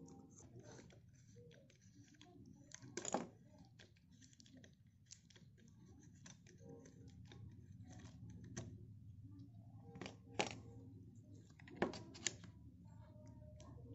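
Antique brass binocular parts being handled: faint light clicks and taps of brass lens rings, caps and eyepiece tubes knocking together, with a few sharper clinks about three seconds in and again near the end.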